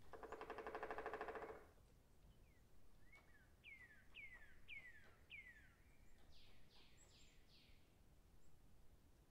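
A short, rapid rattle lasting about a second and a half, then a songbird singing: four quick falling whistled notes, followed by a few higher notes.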